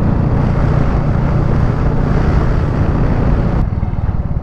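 Royal Enfield Meteor 350's single-cylinder engine running steadily at cruising speed, with wind rushing over the rider's microphone. About three and a half seconds in, the wind hiss drops away abruptly while the engine carries on.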